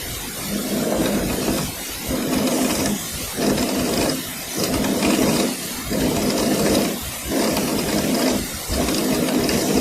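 Rear axle bearings of a Quest velomobile being turned without the freewheel, giving a rough, rumbling running noise that swells and drops about once a second. The noise is in question as a sign of worn or defective bearings.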